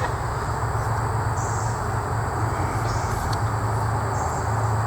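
Steady low background hum with an even noisy haze, and a faint high buzz that switches on and off every second or so.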